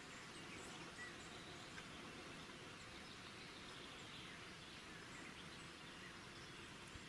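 Faint outdoor ambience, close to silence: a low, even hiss with a few brief, faint chirps, one of them about a second in.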